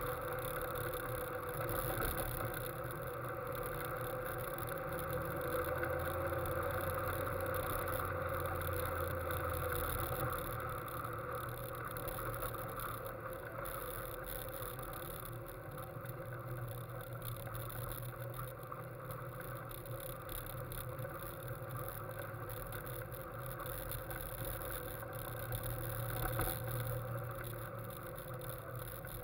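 Westfield sports car's engine running as the car drives along, heard from on board with wind and road noise. The engine note is steady, a little louder in the first ten seconds, then eases off.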